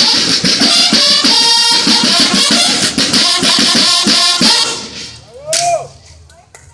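Drum and bugle band playing: rapid drumming with bugle notes, stopping about four and a half seconds in. A short sliding tone follows about a second later.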